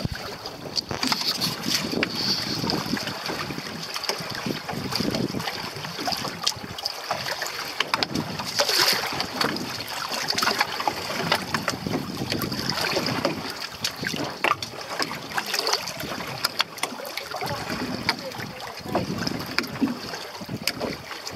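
Wind buffeting the microphone over the rush and splash of water along the hull of a sailboat under way, an irregular noise with frequent crackles and gusts.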